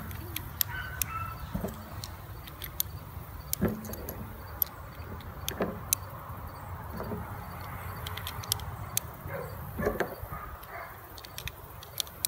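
Ruger Super Blackhawk .44 Magnum revolver being loaded by hand, one cartridge at a time: a run of sharp metallic clicks and brass knocks as the rounds go into the cylinder and it is turned between them.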